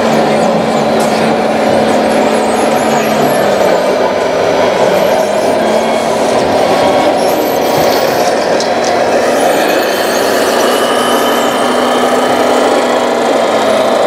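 Steady engine sound from radio-controlled model construction vehicles running, unbroken and fairly loud.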